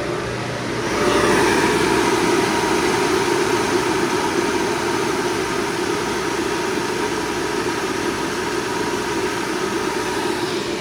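FMC M10000 aircraft ground air-conditioning unit running: a steady machine drone with rushing air and a faint steady whine, growing louder about a second in and then holding.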